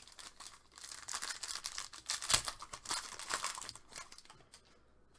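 Foil trading-card pack being torn open and crinkled by hand as the cards are pulled out: a dense run of crackling, with one sharp rip about two and a half seconds in.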